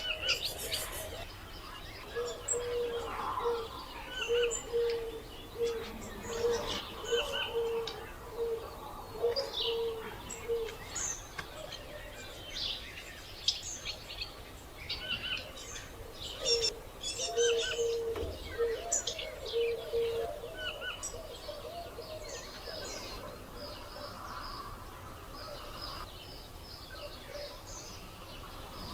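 Several birds calling at once: many short, high chirps and whistles throughout, over a lower note repeated in a quick series in two runs, the first early and the second past the middle.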